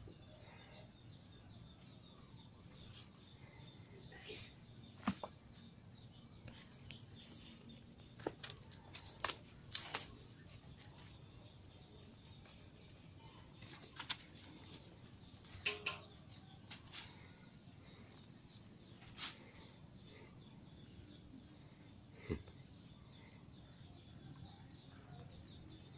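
Faint insect chirping in short, evenly spaced high pulses about once a second, with scattered sharp clicks.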